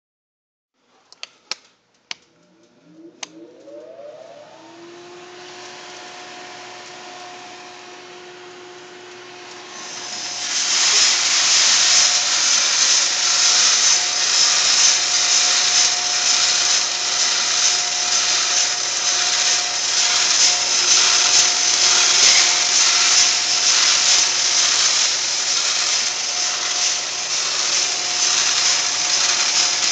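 A few clicks, then a motor on the coffee roaster spins up, rising in pitch to a steady hum. About ten seconds in, a loud, steady rush takes over as the freshly roasted beans pour out of the drum into the perforated cooling tray and are stirred there, with the motor hum still running underneath.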